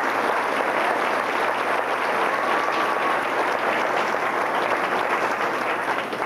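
Audience applauding, a steady dense clapping that fades near the end.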